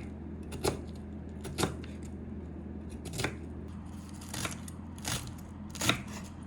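Kitchen knife chopping food on a cutting board: single sharp knocks, roughly one a second and irregularly spaced, over a steady low hum.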